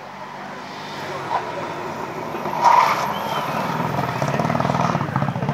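Subaru Impreza rally car's engine growing louder as it approaches, then running hard as the car slides around a hairpin, with one short loud burst near the middle.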